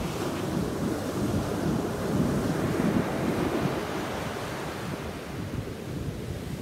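Shallow surf washing up a sandy beach, foam fizzing over the sand, swelling about two seconds in as a wave runs up.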